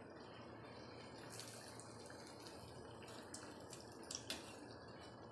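Gram-flour-battered potato slices deep-frying in hot oil on a low flame, the oil bubbling and sizzling steadily. A slotted steel spoon gives a few light clicks against the pan, the loudest pair a little after four seconds in.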